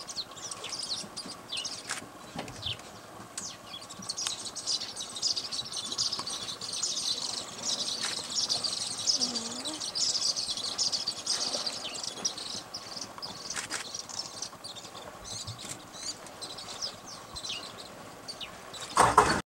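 Many birds chirping and calling together in a dense chorus of short high notes, busiest in the middle. A short loud rush of noise comes near the end.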